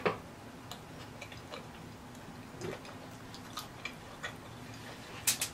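Close-miked chewing of a mouthful of taco with the mouth closed: soft, irregular wet mouth clicks, a few a second, with a couple of louder smacks near the end.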